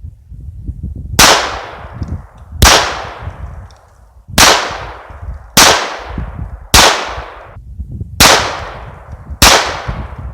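Smith & Wesson Victory .22 LR semi-automatic pistol fired seven times at an unhurried pace, about one shot every second and a half, each sharp crack trailing off in echo.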